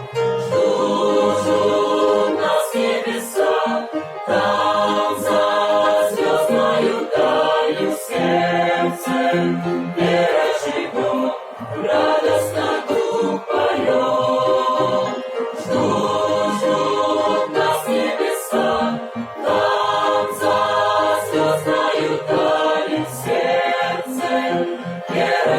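Choir singing in phrases of a few seconds each, with short breaks between them.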